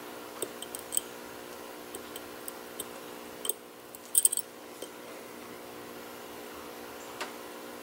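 Small sharp metallic clicks and ticks of a steel lock pick probing the sliders inside a Marks (Skorpion, CX5) lock cylinder, held under tension by a tension wrench. A brief cluster of louder clicks comes about four seconds in, with a single click near the end.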